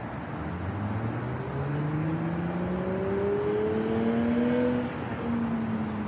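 A car engine accelerating, its pitch rising steadily for about four seconds, then dropping briefly and holding a little lower, over a steady background of city noise.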